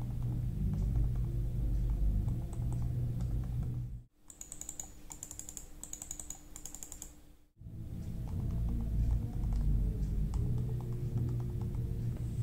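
Runs of small plastic clicks from computer buttons over a steady low hum. About four seconds in, the hum cuts out for a few seconds and four quick groups of sharper, higher-pitched clicks are heard before the hum and the softer clicks return.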